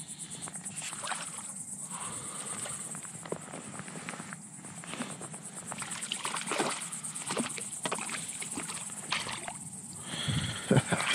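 Water splashing and sloshing as a hooked bream is drawn in through the surface, louder near the end, over a steady high insect trill.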